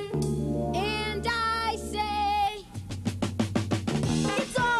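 Instrumental band music: sustained chords under a melody line, then a little over halfway through it breaks into a fast drum fill of quick even strokes that leads into the next section.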